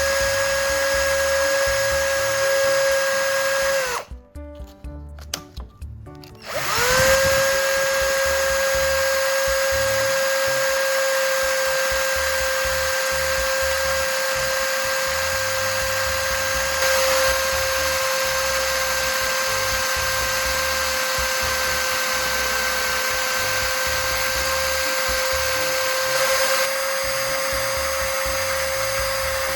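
Electric drill running at a steady speed, spinning a screw against sandpaper to grind its tip to a point, with a steady whine over a grinding hiss. It stops about four seconds in and spins back up about two seconds later.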